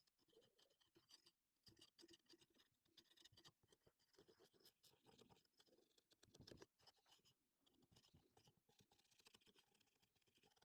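Near silence with faint, irregular scratching and small clicks.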